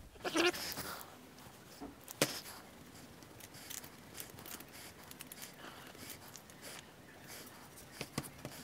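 Hands pressing and rubbing glued paper templates flat onto pallet-wood boards: faint paper rustling and rubbing, with a sharp tap about two seconds in.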